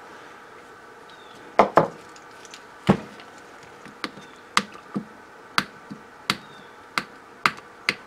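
Sharp clicks and taps of hard plastic parts being handled: a ShurFlo RV water pump's head and pressure-switch parts knocking together in the hands. About a dozen clicks at irregular intervals, starting about a second and a half in.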